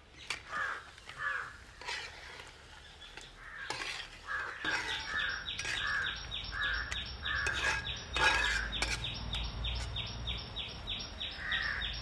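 Crows cawing in a series of short harsh calls. About four seconds in, a fast, even, high pulsing of roughly three to four beats a second starts and keeps going, and there are a few sharp knocks, the loudest about eight seconds in.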